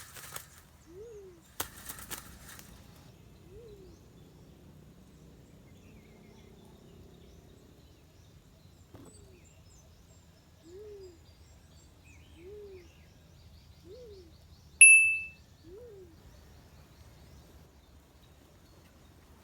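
Black-chinned fruit dove calls: short low hoots, each rising then falling, repeated every second or two, about nine times. A brief sharp high-pitched chirp about 15 seconds in is the loudest sound, and there are a couple of clicks near the start.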